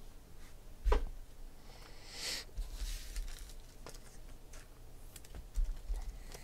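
Hands handling trading card packs and boxes on a table: a knock about a second in, a brief rustle of packaging about two seconds in, and scattered light taps and bumps.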